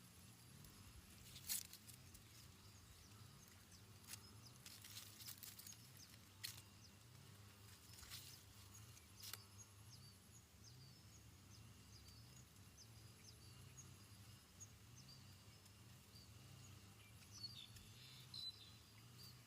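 Near silence with faint bird chirps, mostly in the second half, and a few soft clicks over a low hum.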